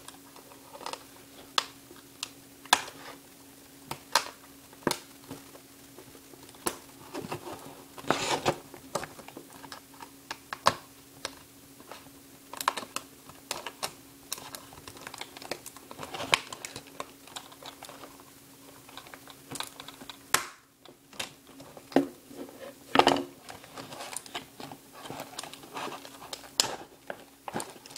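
Scissors cutting through a stiff clear plastic clamshell package, giving irregular sharp snips and clicks with crinkling of the plastic. A faint steady hum runs underneath.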